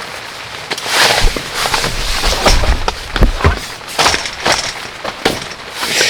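Heavy rain in stormy wind: a dense, irregular clatter of sharp drop hits, with gusts that swell and rumble on the microphone about a second in, through the middle, and near the end.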